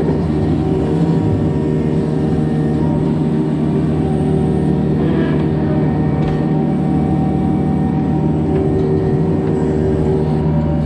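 Diesel engine of a compact construction machine running steadily at working speed, an unchanging engine note with a strong low tone.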